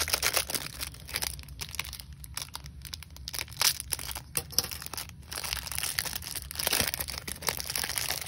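Clear plastic wrapper of a trading-card pack crinkling and tearing as it is opened, in a run of sharp, irregular crackles.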